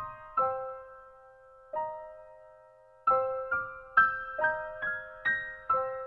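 Soft background piano music, a slow melody of single struck notes that fade away. It thins out to a couple of lingering notes in the first half, then picks up again about three seconds in.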